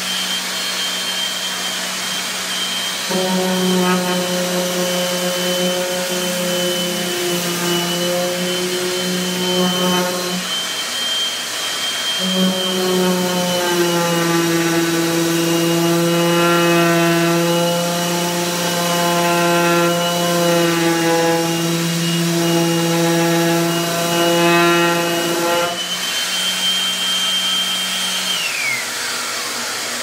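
Craftsman orbital sander running on a wooden boat rail with a vacuum hose attached to draw the dust through its pad. Its tone shifts and drops out briefly as it is pressed and moved. Near the end its high whine falls away as it spins down.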